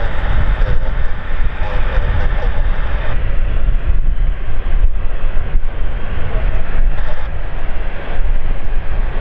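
Airliner engines running, a loud steady rumble and roar with a heavy low-end drone.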